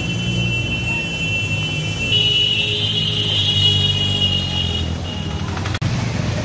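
A motor vehicle engine runs steadily under a high, steady alarm-like tone. The tone grows louder about two seconds in and stops about five seconds in. A single sharp click comes near the end.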